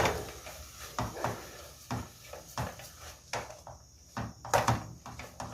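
Kitchen clatter: irregular knocks and clicks of pots, pans and utensils being handled, some louder than others, with a few close together near the end.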